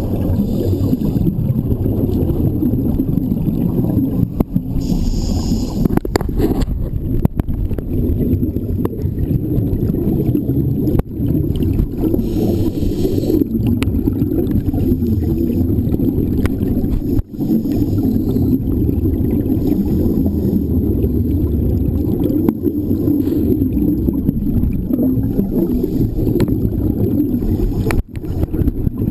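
Muffled underwater rumble picked up by a camera in a waterproof housing, with bursts of bubbling hiss every few seconds from scuba divers exhaling through their regulators.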